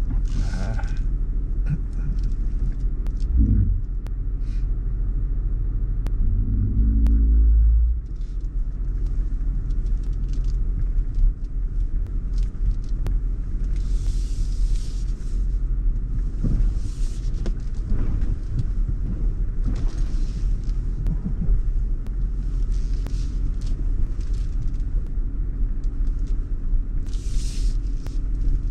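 Land Rover engine running at low speed on a muddy off-road track, heard from inside the cabin as a steady low rumble. The engine note rises and grows louder for a moment about seven seconds in, with scattered knocks and a few short spells of hiss along the way.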